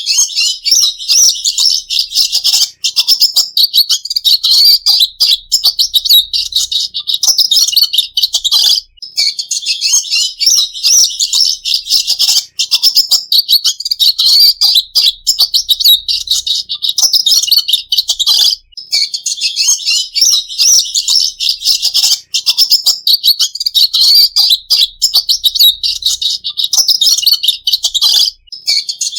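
Red siskin singing: a fast, continuous, high-pitched twittering warble, broken only by a few brief pauses.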